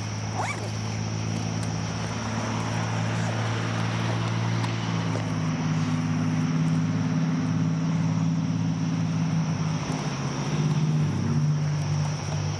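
Aircraft engine droning overhead: a steady low hum that shifts in pitch a couple of times.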